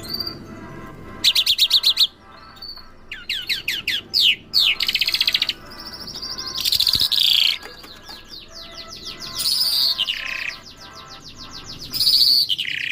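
Bimaculated lark singing: a varied run of fast, high trills and rattling phrases, some notes sweeping down and some rising, broken by short pauses.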